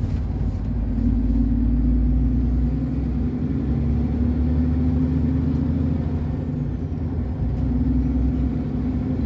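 Heavy truck's diesel engine and road noise heard from inside the cab while driving: a steady low drone that swells a little and eases off.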